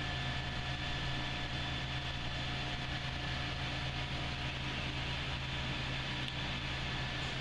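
Steady hum and hiss of running wastewater-treatment machinery, electric motors and pumps, with a few faint steady whining tones over it.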